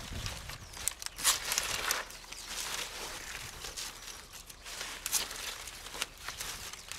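Rustling and crunching of dry pineapple leaves and shade netting as pineapples are harvested by hand with a knife, with a louder burst of crunching about a second in and a few sharp crackles later.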